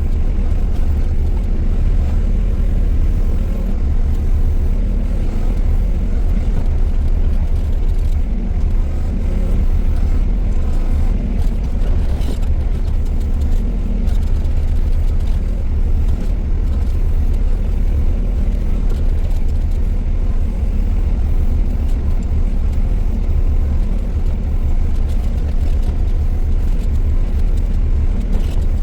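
Shantui STE35SR mini excavator's diesel engine running steadily under work, a deep, even rumble.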